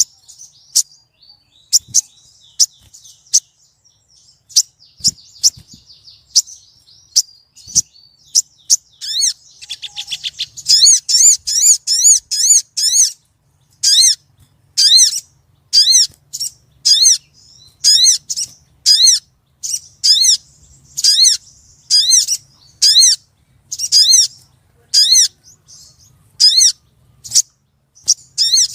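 Female sogon (crimson sunbird) calling to attract a male: sparse sharp high chips at first, then about ten seconds in a quick trill followed by a steady series of loud, arched high notes, about two a second.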